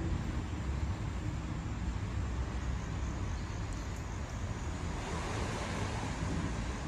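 Steady outdoor rumble and wind noise on the microphone, with no tone in it.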